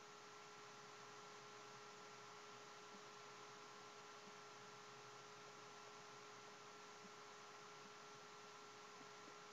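Near silence: a faint, steady electrical hum over low hiss, with no other sounds.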